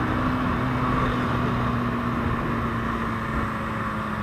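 Motorcycle engine running under way with heavy wind and road noise, its note easing slightly lower as it slows.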